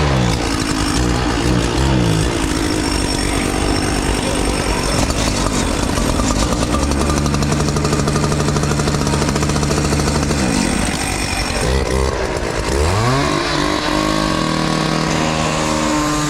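An engine runs steadily, its pitch gliding up and falling back several times: revving up about a second in, holding steady in the middle, and revving up again near the end before dropping.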